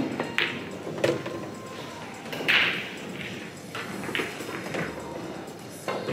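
Pool balls on a nine-ball table: the cue strikes the cue ball, and a sharp click follows as it hits an object ball, which is pocketed. A string of further clicks and knocks follows, with a louder clatter about two and a half seconds in.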